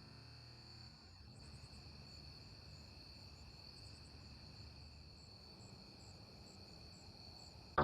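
Faint steady high-pitched insect trill, with short chirps repeating a few times a second, like crickets.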